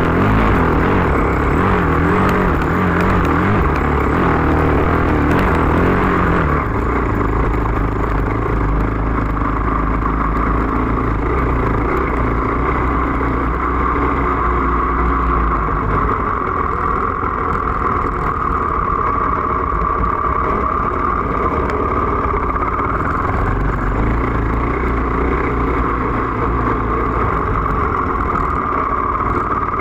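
KTM EXC enduro dirt bike's engine running on a trail ride, heard from a phone mounted on the bike; the revs rise and fall repeatedly for the first six seconds or so, then the engine runs steadier and a little quieter.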